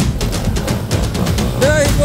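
Music with drums.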